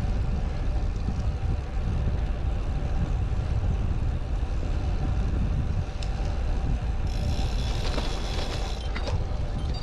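Wind buffeting the microphone of a rider on a road bike, a steady low rumble. About seven seconds in a brighter hiss joins it for roughly two seconds.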